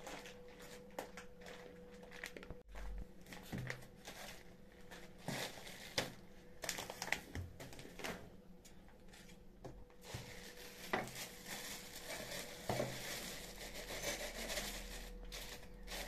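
Groceries being handled on a kitchen counter: scattered knocks and taps as packets are picked up and set down, with plastic bags crinkling. The rustling grows denser in the second half, and near the end a plastic bag of roasted chickpeas is tipped into a glass jar.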